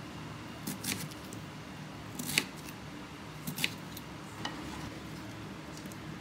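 Kitchen knife chopping a daikon radish on a wooden cutting board: about half a dozen crisp strokes with pauses between, as the blade cuts through and taps the board, the sharpest about two and a half seconds in.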